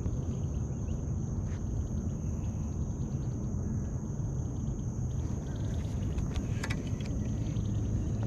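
Lakeside outdoor ambience: a steady high insect drone over a constant low rumble, with a few short bird chirps near the end.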